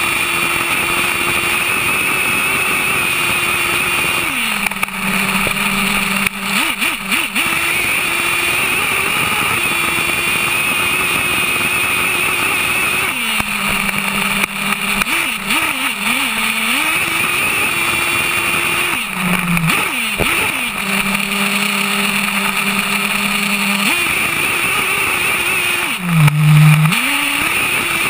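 HPI Savage X 4.6 RC monster truck's small nitro engine screaming at high revs. Several times it falls back to a lower tone and is blipped before climbing again, as the throttle is let off and reapplied.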